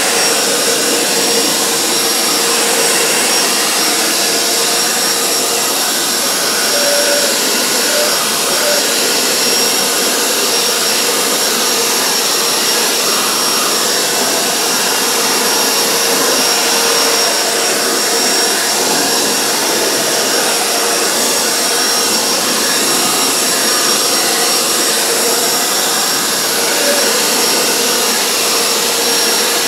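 Worx WG520 corded electric leaf blower running steadily, blowing water off a freshly rinsed car engine bay to dry it: a constant rush of air with a steady whine.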